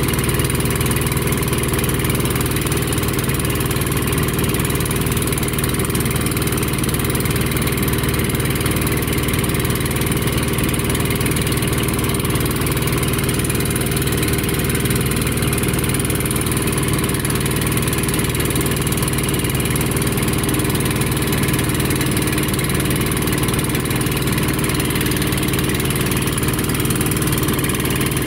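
Boat engine running steadily with an even drone.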